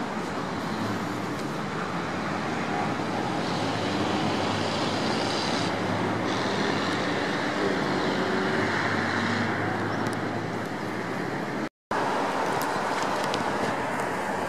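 Running noise of a moving tram heard from inside: a steady rumble with a low motor hum. The sound drops out for a split second near the end.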